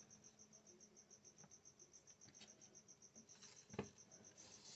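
Near silence: a faint, high chirping that pulses evenly about seven times a second, with a soft click from handling the meter wires about four seconds in.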